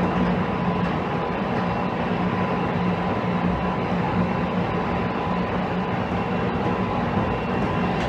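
Interior running noise of a JR Kyushu 813 series electric train car cruising at steady speed: an even rumble of wheels on rail with a constant low hum and a faint steady tone.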